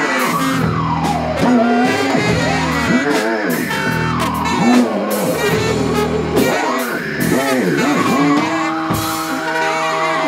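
Live free-improvised band music on saxophone, electric guitar and drums, full of dense noise with swooping glides that rise and fall in pitch about every two seconds. A steady held note comes in near the end.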